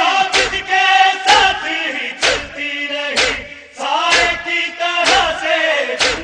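Male voices chanting an Urdu noha lament, with heavy matam chest-beating strikes about once a second, seven in all.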